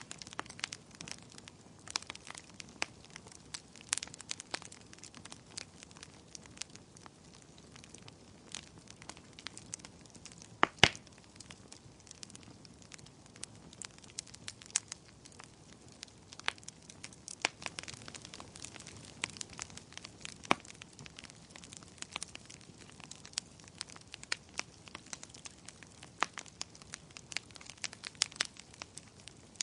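Wood fire crackling in a fireplace: irregular sharp pops and snaps over a low hiss, with one louder pop about eleven seconds in.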